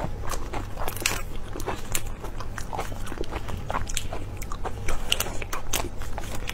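Crackling and snapping of a large prawn's shell and head being pulled apart by gloved hands, heard close up as a rapid run of short, sharp cracks.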